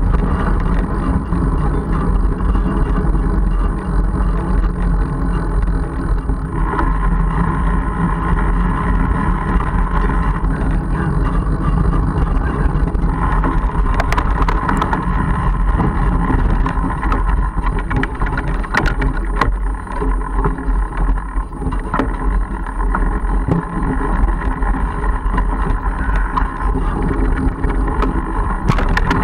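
Mongoose Argus fat bike rolling over a dirt track and forest ground, heard through a bike-mounted camera: a steady rumble of tyres and wind on the microphone, with a few sharp rattles and knocks from bumps, a cluster about halfway through and again near the end.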